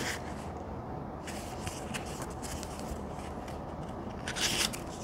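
Pages of a small paperback booklet being thumbed through, a few short soft paper flicks with a longer rustle about four and a half seconds in.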